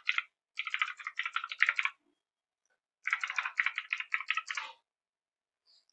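Computer keyboard being typed on in rapid runs of keystrokes: one run through the first two seconds with a brief break, a pause of about a second, then a second run of nearly two seconds, quiet near the end.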